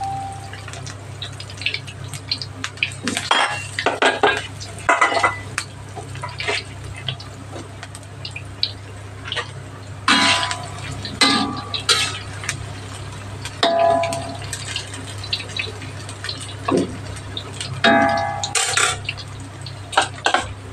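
Battered cauliflower florets deep-frying in hot oil in a stainless steel wok, sizzling steadily, while a metal spatula stirs them and knocks against the wok in three bouts, each clink ringing briefly.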